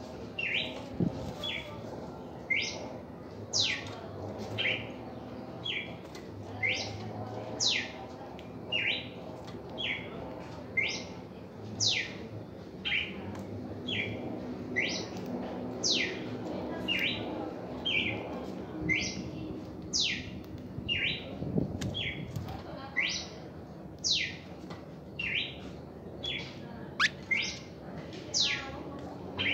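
Red-crested cardinal singing: a long run of clear whistled notes, short ones alternating with fast sweeping ones, about two notes a second, over a low steady background hum.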